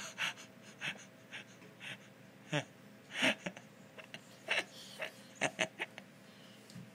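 Short, quiet breathy huffs and gasps from a person at play, about a dozen, coming irregularly.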